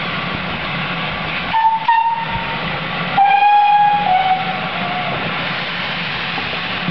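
Steam locomotive whistles over a steady hiss of escaping steam: a short blast about a second and a half in, then a longer blast about three seconds in that steps down slightly in pitch, as the engines get ready to depart.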